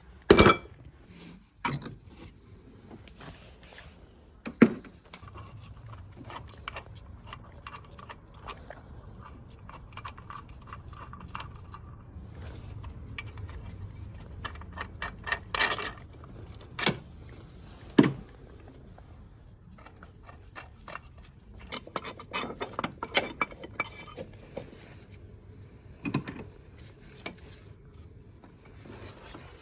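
Metal hand tools clinking and scraping against engine parts, with several sharp metallic knocks spread through and a run of quick small clicks near the end.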